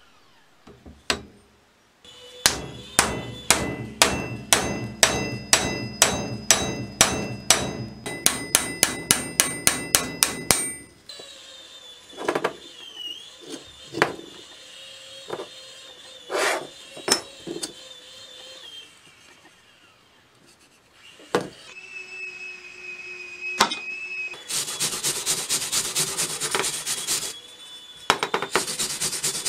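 A hammer striking repeatedly with a metallic ring, about two blows a second and then quickening to about four a second, knocking the old wooden handle out of a rusty hatchet head. A few scattered knocks follow, and near the end a rough, rhythmic scraping on the bare steel head.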